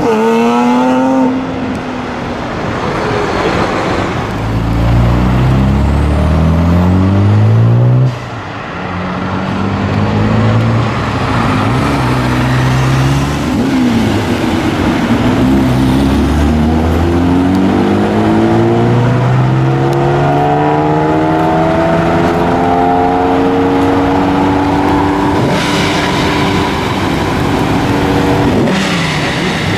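Modified Japanese sports car engines accelerating hard, the engine note climbing in pitch and dropping back at each gear change, over and over. The sound breaks off abruptly about eight seconds in and another run takes over.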